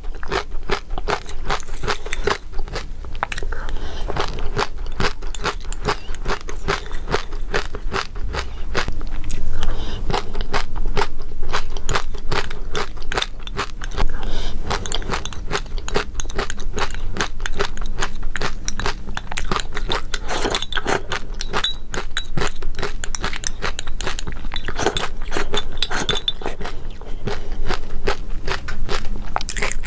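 Close-up eating sounds: crisp seeds mixed into thick yogurt being bitten and chewed, a dense, continuous run of small crunches.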